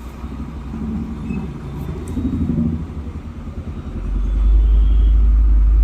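Low rumble that swells much louder about four seconds in and holds steady.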